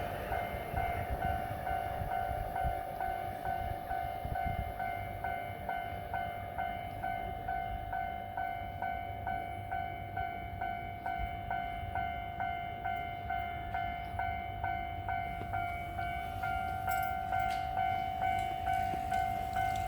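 Electronic Japanese railway level-crossing alarm ringing, a steady high tone with a second tone pulsing about twice a second, over the low rumble of train traffic on the line.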